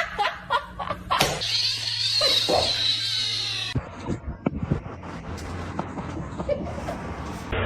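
A domestic cat vocalizing, with a drawn-out, noisy call for a couple of seconds, followed by scattered short knocks.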